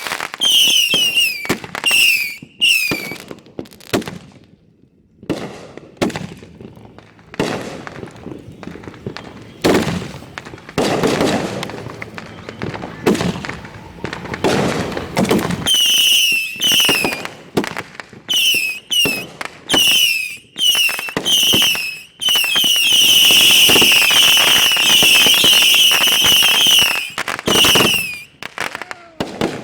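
Consumer fireworks finale at close range: rapid bangs and crackling bursts, with repeated short, high, slightly falling whistles near the start and again, almost without a break, through the last third.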